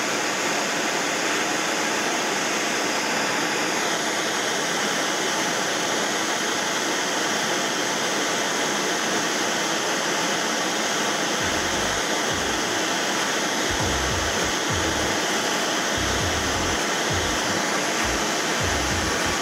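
MAP gas torch flame hissing steadily as it heats the small end of a steel connecting rod for a press-fit wrist pin. Low rumbles come and go in the second half.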